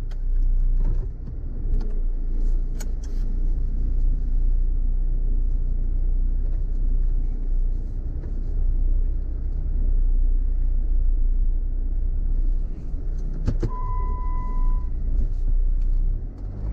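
Car driving slowly over a rough unpaved off-road track: steady engine and tyre rumble with occasional knocks. About three-quarters of the way through, a single electronic beep sounds for about a second.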